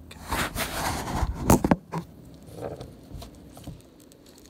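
Close-up handling noise: rustling and scraping of hands and a fleece sleeve against the microphone while an RJ45 connector is worked onto a network cable, with two sharp clicks about a second and a half in, then a few fainter taps that die away.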